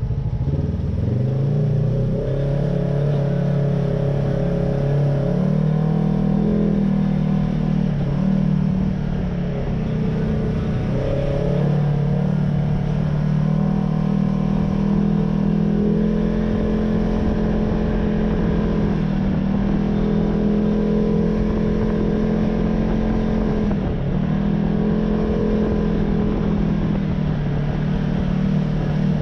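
Polaris RZR side-by-side engine running under way, heard from inside the cab, its pitch rising and falling with the throttle. It dips briefly about a second in, around ten seconds and around twenty-four seconds, and holds steady in between.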